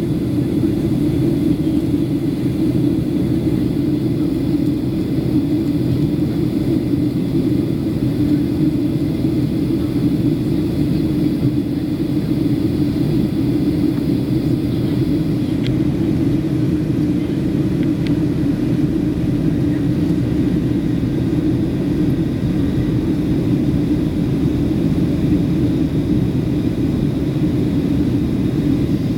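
Steady cabin noise inside a Boeing 737-700 on approach: its CFM56 jet engines and the airflow past the fuselage make a constant low rumble.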